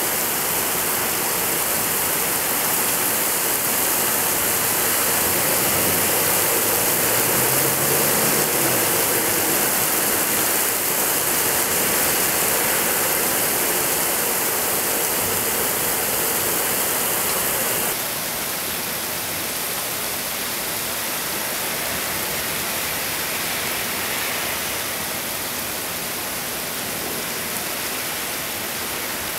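Heavy rain pouring down in a steady, dense hiss; about two-thirds of the way through it becomes a little quieter.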